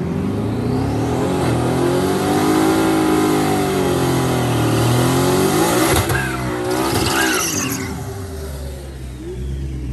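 Twin-turbo Coyote 5.0 V8 Mustang doing a burnout: the engine revs up and holds high with its pitch swelling and sagging for about six seconds, with short chirps near the end. It then drops back to a lower, steady idle about eight seconds in.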